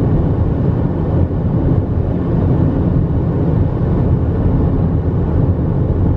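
Steady road and engine rumble of a car cruising at highway speed, heard from inside the cabin.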